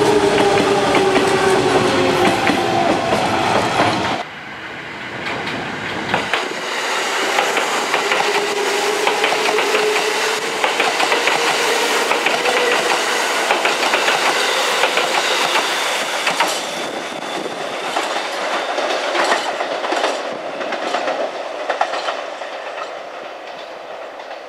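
Electric trains at a station platform: a train's traction motor whine and wheels clicking over rail joints, cut off abruptly about four seconds in. Then a Kintetsu train runs close by with motor whine and wheel clatter that fades as it moves away.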